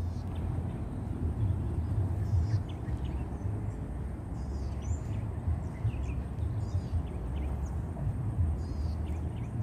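Outdoor ambience: a steady low rumble, with faint short bird chirps now and then.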